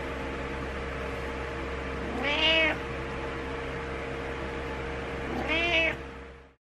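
Domestic cat meowing for attention, two calls about three seconds apart, each rising then holding briefly, over a steady background hum.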